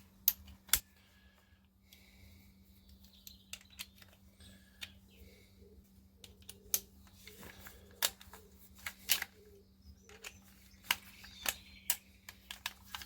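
Irregular sharp clicks and light metallic taps from hand tools working on the plastic-and-metal body of a copy SDS drill as it is being taken apart, over a faint steady hum.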